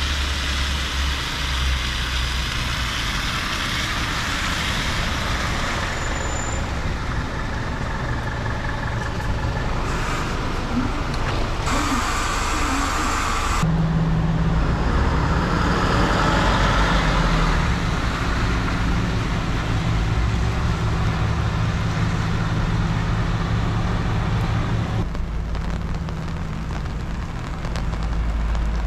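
Steady low engine rumble with traffic-like noise. Its character shifts abruptly a few times, about twelve seconds in, again a couple of seconds later, and near the end.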